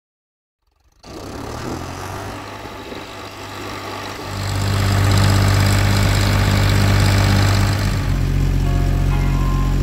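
Fendt Farmer 104 LS tractor's diesel engine running steadily after about a second of silence, growing much louder about four seconds in. Near the end, a melody of synth notes comes in over it.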